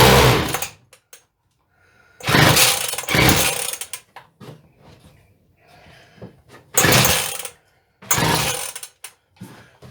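Partner T240 strimmer's two-stroke engine being pull-started: four loud pulls on the recoil starter, each bringing a short burst of the engine cranking and firing, and none of them running on.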